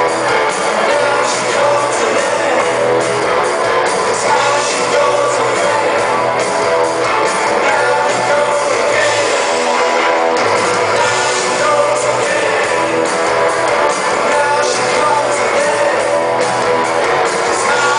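Live rock band playing at full volume, electric guitars strumming over bass, heard from the audience in a concert hall.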